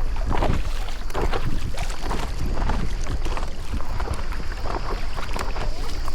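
Water splashing and lapping around a stand-up paddleboard in a run of short, irregular splashes, with wind rumbling on the microphone.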